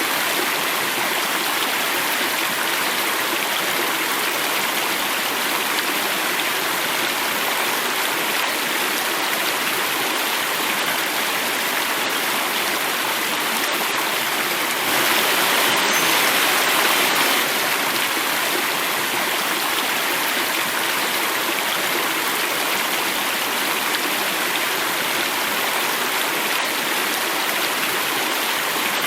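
Water flowing and falling in a small cascade: a steady, even rushing that grows a little louder for a couple of seconds about halfway through.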